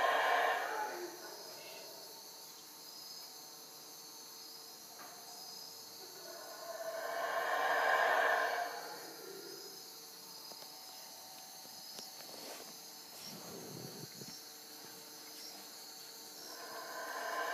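A distant troop of howler monkeys (Yucatán black howlers) calling in long, rising-and-falling howls. The calls swell and fade roughly every eight seconds over a steady high chirring of night insects.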